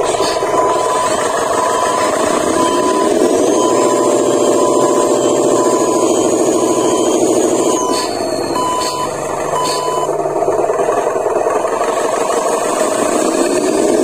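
Electric drive motor and gearbox of a remote-control model truck whining. The whine rises in pitch as it speeds up about three seconds in, holds, drops near eight seconds and rises again near the end, as the loaded truck strains with its wheels bogged in mud. A short beep at a fixed pitch repeats about twice a second through the first ten seconds.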